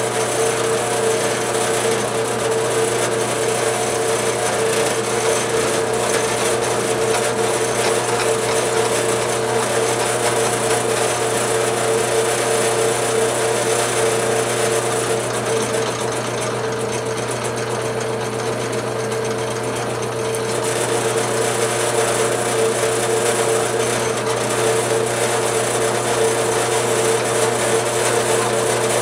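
Drill press running a milling spindle, a 3/16-inch end mill cutting a slot in nylon: a steady motor hum and whine with the hiss of the cut, easing a little for a few seconds about sixteen seconds in.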